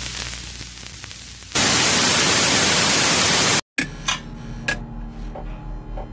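TV static sound effect: a faint hiss with a low hum swells into a loud, even static hiss about a second and a half in, which cuts off abruptly two seconds later. A run of glitchy clicks over a low buzz follows.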